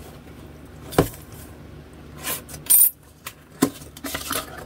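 A small cardboard box being opened by hand. There is a sharp tap about a second in, then rustling and scraping of cardboard as the flaps are pulled open, with a loud brief rip near the middle and another click a little later.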